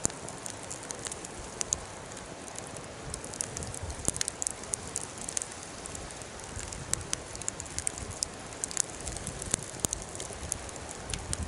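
Wood fire burning in a fire pit: a steady hiss and rustle of flames with frequent sharp, irregular crackles and pops.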